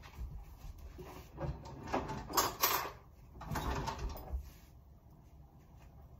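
Kitchen drawer opened and cutlery rattled, in two noisy bursts of about a second each.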